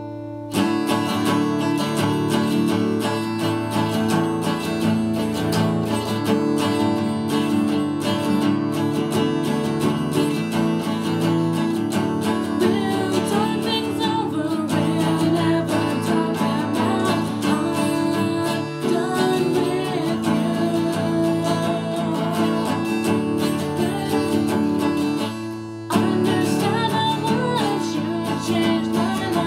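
Acoustic guitar strummed in steady chords, with a woman singing over it. The strumming breaks off briefly twice, right at the start and near the end.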